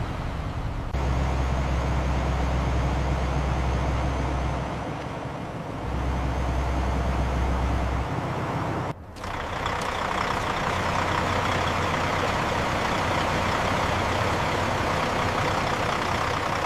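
Heavy vehicle engine running with a steady low hum, broken by an abrupt cut about nine seconds in, after which a rougher, noisier running sound continues.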